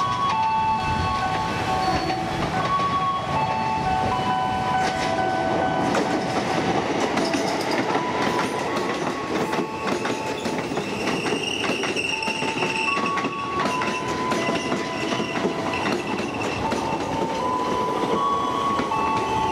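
Electric commuter trains running through a station. A whine steps from one pitch to another all the way through over a running rumble, and wheels clatter rapidly over rail joints in the middle as a train passes close by.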